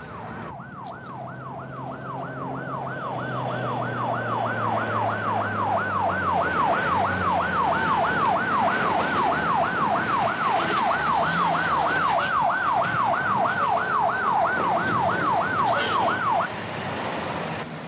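Police siren wailing in fast, even up-and-down sweeps, about three a second, growing louder over the first few seconds and cutting off abruptly near the end. A low engine hum runs under it for the first several seconds.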